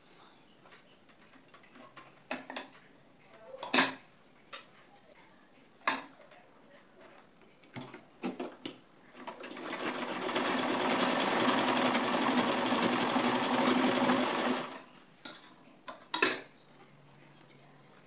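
Butterfly sewing machine stitching a test seam through white cloth, running steadily for about five seconds. Scattered clicks and knocks come before it as the cloth is set under the presser foot, and a sharp knock follows.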